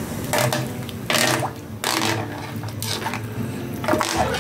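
A spoon scraping and stirring in a stone-coated pot of broth, dissolving tom yum paste, in a few short scrapes over a steady low hum.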